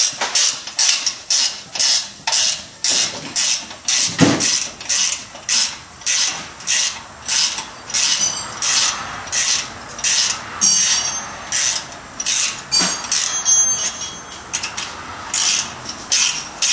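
Hand ratchet wrench backing a loosened nut off an exhaust clamp bolt: quick rasping ratchet strokes, about two a second, with a brief metallic squeak about two-thirds of the way in.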